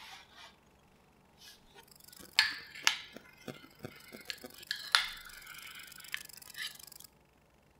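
Metal spoon clinking and scraping against a ceramic pot while cutting through set steamed egg custard: a few sharp clinks, the loudest about two and a half and five seconds in, among lighter taps and scraping, stopping suddenly near the end.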